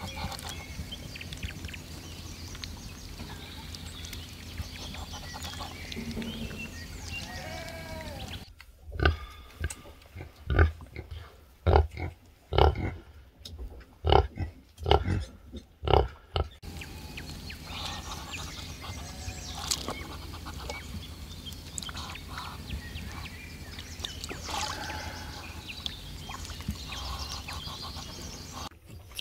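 Sow grunting in an even rhythm, about three deep grunts every two seconds, while her piglets suckle: the steady nursing grunts a sow gives at milk let-down. Before and after the grunting there is outdoor background with a low steady rumble and a few faint calls.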